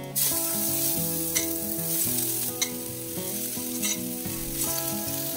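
Parboiled shredded cabbage hitting hot oil and fried spices in a pan and sizzling, the sizzle starting suddenly as it goes in. It is then stirred with a spatula, frying at high flame.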